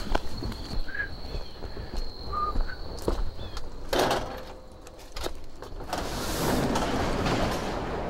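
A short loud rattle about four seconds in as the handle of a sectional garage door is turned, then the door rumbling up along its tracks for about two seconds near the end, after scattered light footsteps.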